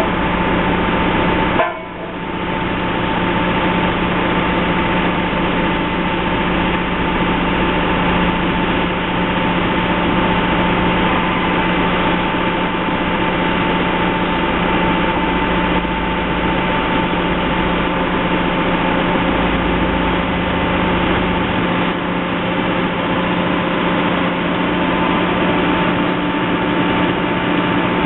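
Heavy construction machinery's engine running steadily, a constant drone with a steady whine, dipping briefly about two seconds in.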